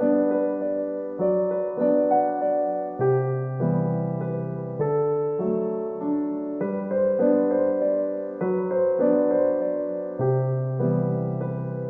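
Background music: soft piano or electric piano playing slow, sustained chords that change about every second and a half.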